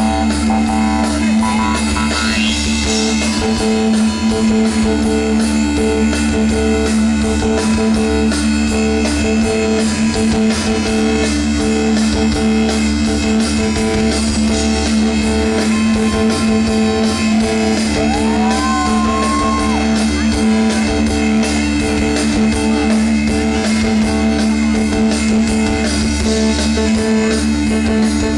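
Live rock band playing an instrumental passage: electric guitar and bass over drums, with a steady held note running underneath.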